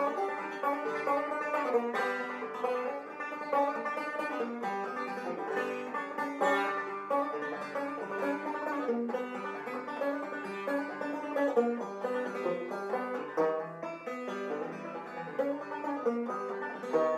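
Banjo music: a quick, continuous run of plucked notes.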